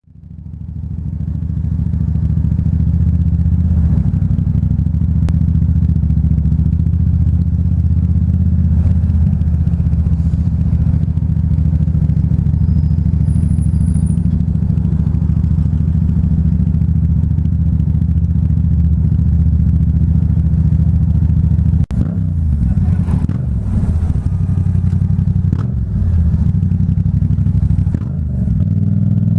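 Yamaha MT-07's parallel-twin engine through a Black Widow aftermarket exhaust, heard from inside the rider's helmet. It runs at a steady, low, throbbing note, then about two-thirds of the way through it drops off suddenly and rises and falls with changes of throttle.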